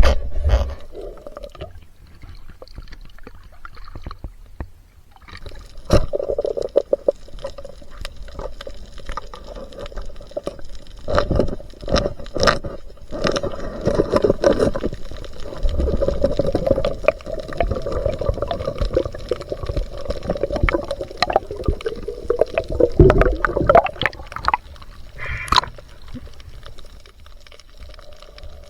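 Water gurgling and sloshing, with many scattered clicks and knocks.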